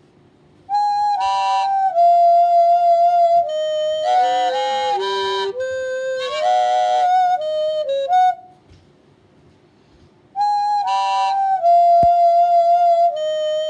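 A short flute-like melody of held notes coming from a radio, stopping about eight seconds in and starting the same phrase over about two seconds later, like a looped signal.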